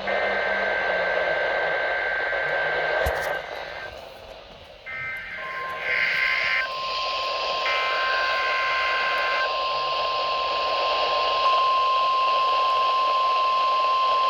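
Emergency alert tones received over the radio with a steady hiss. First come the two-pitch SAME digital header bursts, with a short break at about three seconds. From about five seconds in, a steady single-pitch weather radio alert tone sets in, overlapping further header bursts until about nine seconds and holding to the end.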